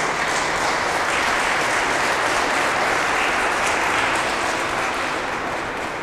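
Audience applauding at the end of a children's choir song, a dense steady clapping that thins slightly near the end.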